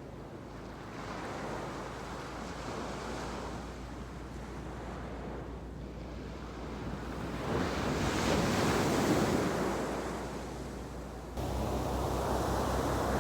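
Ocean surf breaking on a sandy beach, swelling and easing, with the biggest wave about eight seconds in. A steady low rumble cuts in suddenly near the end, with wind on the microphone.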